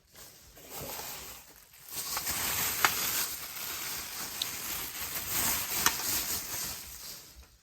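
Plastic bag rustling and crinkling as a packaged device is handled and pulled out, with a couple of light clicks.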